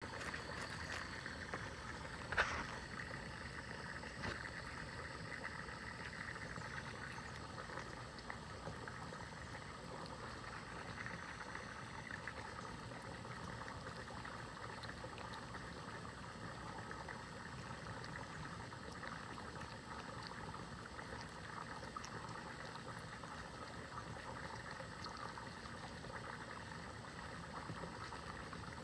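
Steady running, bubbling water, with a single sharp knock about two and a half seconds in.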